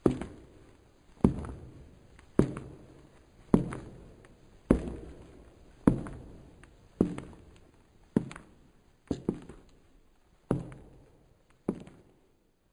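Slow footsteps of hard-soled shoes, about one step a second, each with an echoing tail, growing a little fainter near the end.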